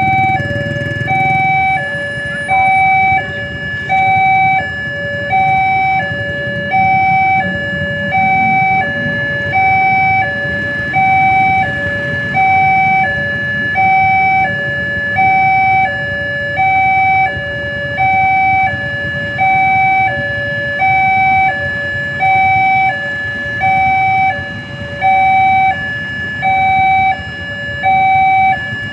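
Railway level-crossing warning alarm sounding steadily: a two-tone electronic alarm alternating between a higher and a lower note, one high-low cycle about every second and a half, which signals that the barriers are down for an approaching train. Under it is the low running of motorcycle and car engines waiting at the crossing.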